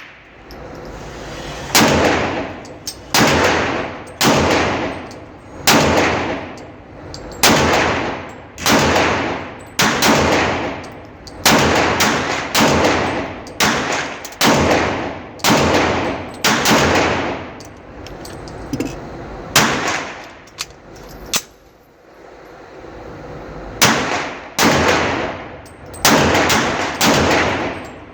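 Handgun shots fired one at a time at a steady pace, about one a second, each with a long echoing tail off the range, with a pause of a few seconds past the middle before the shooting resumes.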